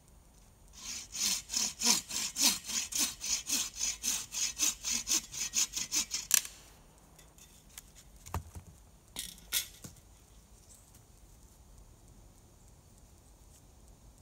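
A hand saw cutting through a dead hemlock stick in about twenty quick back-and-forth strokes, which stop after some five seconds. A couple of seconds later come three sharp knocks of wood.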